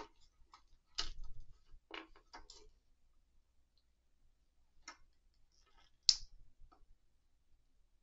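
Scattered clicks and taps of a Hot Toys Stormtrooper figure's plastic parts being handled and fitted together on a wooden board. There is a dull knock about a second in and the sharpest click about six seconds in.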